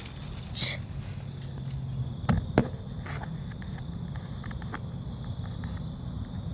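A few footsteps and scrapes, with sharp knocks about half a second and two and a half seconds in, over a steady low hum.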